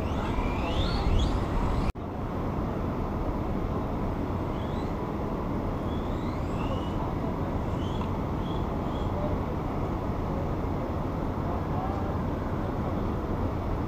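Steady outdoor background noise, traffic-like, with faint short rising whines of small electric RC cars accelerating, mostly in the first two seconds. The sound drops out briefly about two seconds in.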